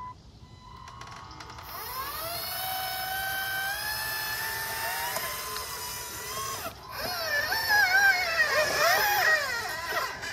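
Electric drive motors of a Despe RC model excavator whining as the boom and arm move, the pitch rising at first and then stepping between steady notes. After a short break the whine comes back louder and wavers up and down as the bucket works in the trench.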